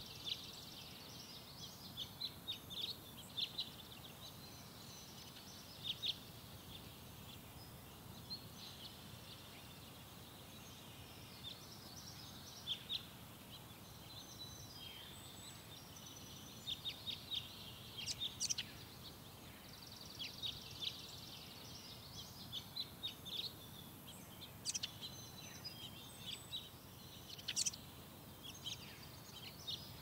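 Small songbirds chirping: short, high chirps and twitters come in scattered clusters, over a steady faint hiss.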